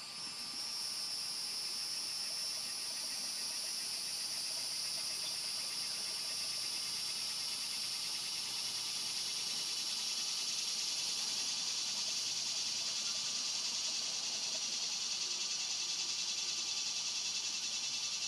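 Steady insect chorus: a continuous high buzzing hiss at two pitches, which swells up at the start; the higher layer drops out about two-thirds of the way through.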